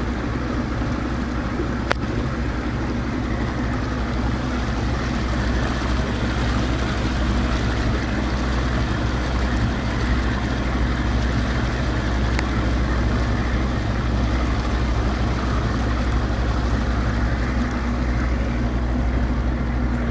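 A small motorboat's engine running steadily under way, with the rush of wind and water over it. There is a brief sharp click about two seconds in.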